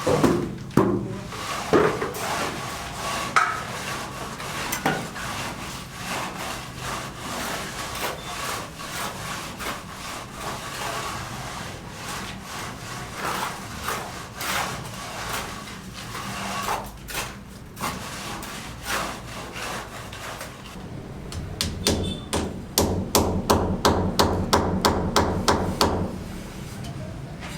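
Hand tools working timber: scattered knocks and scraping, then a quick, even run of strokes, about four a second, for some five seconds near the end.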